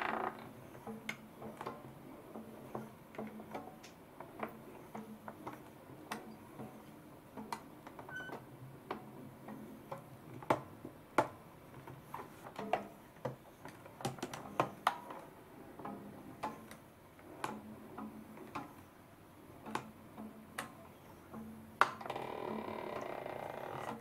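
Scattered light clicks and taps from a plastic hand-cranked sushi rice-forming machine and its wooden board as shaped nigiri rice pieces are pushed out of the mould, with a few sharper knocks midway and near the end.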